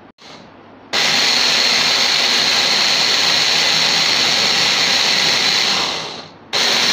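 Electric hand blender in its chopper bowl running at full speed, blending mango chunks and yogurt, with a steady high whine. It switches on about a second in, winds down near the end, and is switched straight back on.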